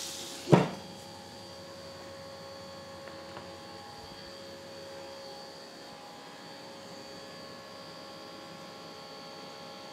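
The lid of a Ninja Foodi Max Health Grill shutting with a single thud about half a second in, cutting off the sizzle of chicken on the grill plate. The grill then runs with the lid down, its fan giving a steady hum.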